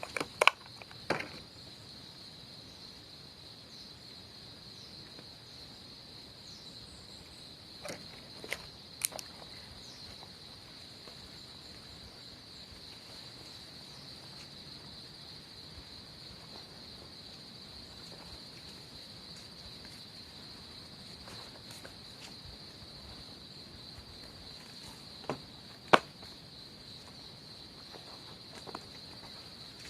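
Steady high-pitched chorus of insects, with a few sharp clicks over it: a cluster at the start, a couple about eight seconds in, and the loudest single click about twenty-six seconds in.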